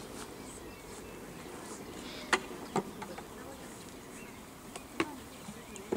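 A few sharp clicks or knocks, three of them louder, about two seconds in, just after, and near the end. Underneath is a steady outdoor background with faint, distant voices.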